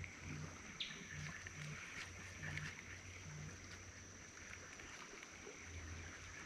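Faint rainforest ambience: a steady high-pitched drone of wild creatures, with a short chirp about a second in.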